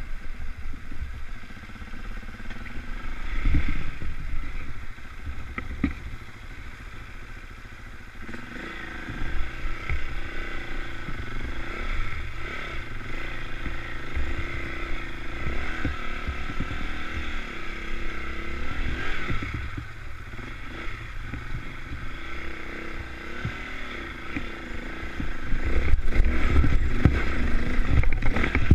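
KTM trail bike engine running and being revved, its pitch rising and falling with the throttle. It is loudest near the end.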